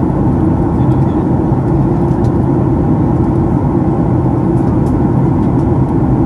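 Steady cabin noise of a jet airliner in flight: a deep, even rumble of engines and airflow with a faint steady hum in it.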